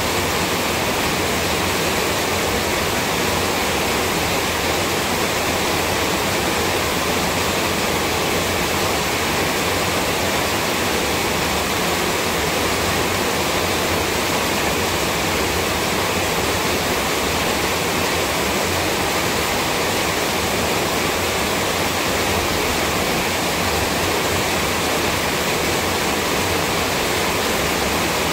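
Steady, even hiss like rushing water or static, unchanging throughout and loud enough that no voice comes through.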